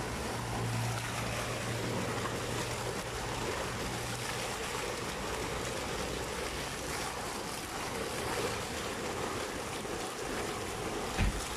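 Fountain jets splashing steadily into a basin: a constant rushing wash of falling, churning water. A brief low thump near the end.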